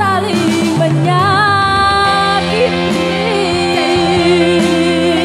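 An amplified singing voice holding long notes with vibrato, over electronic keyboard backing played through a PA system.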